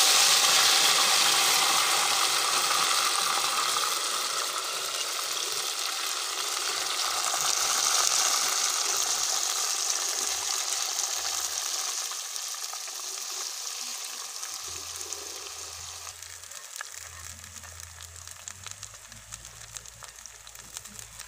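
Soaked semolina hitting hot ghee and caramelized sugar in a karahi, sizzling loudly at first. The hiss fades steadily as the semolina is stirred in.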